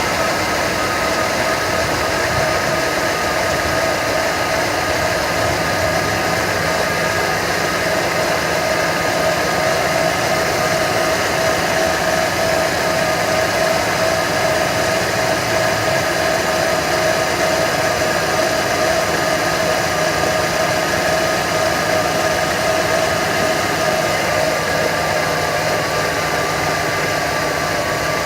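1995 Mustang GT's 5.0 L V8 idling steadily, with a steady whine running over the engine noise.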